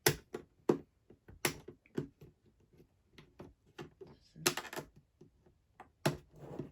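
Irregular clicks and clacks as the pieces on top of a toy puzzle box are pressed and pushed by hand. There are louder knocks about a second and a half in, around the middle, and near the end.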